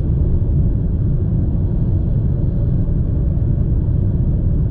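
Steady low road and wind rumble inside a Nissan Sylphy's cabin at expressway speed, with tyre and engine noise blended in. It is the kind of highway noise the driver calls a bit loud above about 110 km/h.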